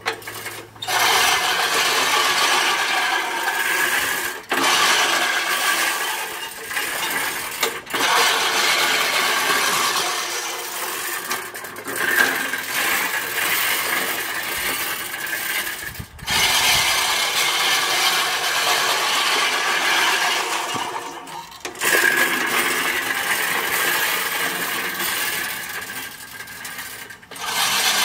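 Sun Joe reel lawn mower's spinning blades rattling and clicking as they cut tall grass, in pushes of a few seconds broken by short pauses.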